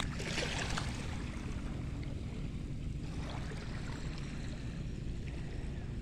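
Shallow seawater washing and splashing over rocks at the shoreline, with a brief brighter splash in the first second, over a steady low rumble.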